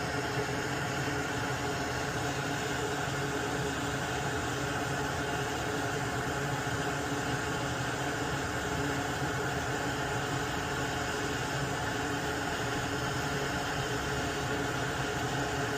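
Small electric blower running with a steady whir and hiss, a few faint steady tones within it.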